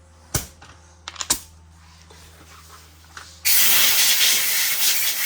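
A few sharp clicks, then about three and a half seconds in a compressed-air blowgun lets out a loud hiss for about two seconds before cutting off, blowing debris out of the gap between a truck's leaf spring and its rub block.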